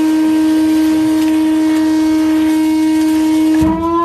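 Vacuum cleaner motor running with a steady droning hum, sucking water from around a hole in the hull; its pitch rises slightly near the end.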